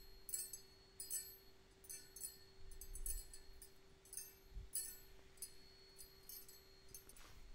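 Grade 5 titanium balisong handles hanging together on an anodizing rack wire, swinging and clinking against each other like wind chimes: faint, light metallic clinks at an uneven pace of about one or two a second, each ringing briefly.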